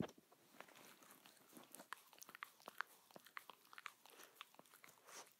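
Small dog's faint mouth noises right at the phone held to its face as a microphone: irregular little wet clicks and smacks, several a second.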